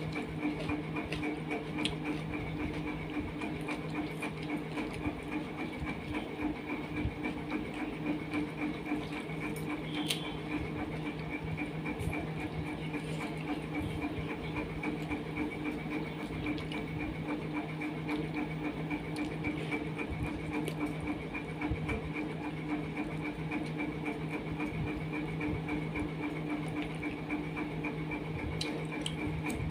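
A steady hum with a fast, even pulse, as of a small motor running, with faint clicks here and there.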